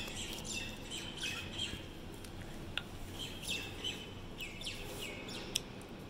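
Cockatiels chirping in short, repeated calls, several falling in pitch, with a couple of sharp clicks mixed in.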